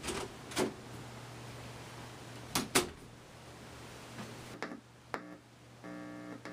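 Several sharp knocks or thuds, roughly in pairs, like a door or cupboard being handled. Near the end a steady buzzy beep starts, the tone of a Morse code practice sounder.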